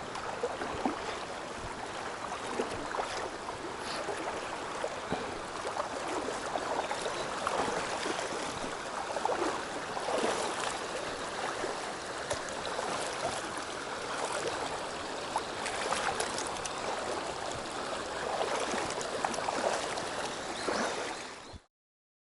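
River water running over rocks: a steady rush with many small splashes and gurgles. It cuts off abruptly near the end.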